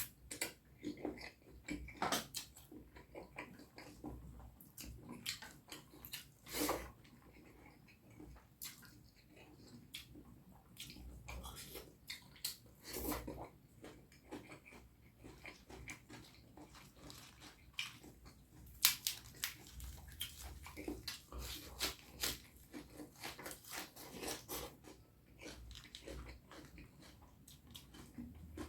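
Close-miked chewing and mouth sounds of someone eating curry and rice, with irregular short clicks throughout.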